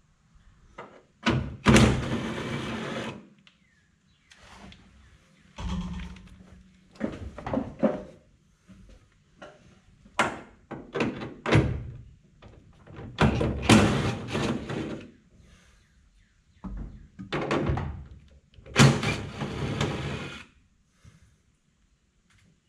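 Cordless drill running in several short bursts of a second or so on a truck grille's fasteners, with knocks and clunks of the grille parts being handled in between.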